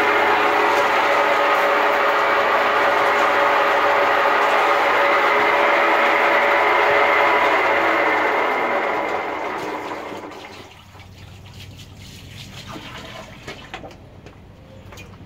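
Ridgid K-60 sectional sewer machine running with 7/8-inch cable spinning in the drain line: a loud, steady motor whine and cable rattle. About eight seconds in the machine is shut off and winds down over a couple of seconds, leaving scattered light knocks.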